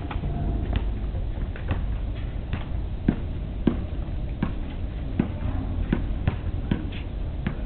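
Umbrella stroller pushed over asphalt by a small child, its plastic wheels and frame giving irregular clacks and knocks about one or two a second over a steady low rumble.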